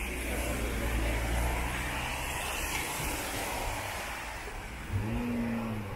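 Car traffic on a wet road: tyres hissing on the wet asphalt over a low steady rumble of engines. A short low whine, falling slightly in pitch, comes about five seconds in.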